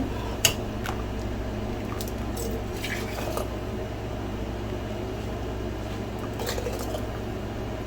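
Thick herbal cough syrup being poured into glass jars: soft wet squelching and dripping with a few light clicks scattered through, over a steady low hum.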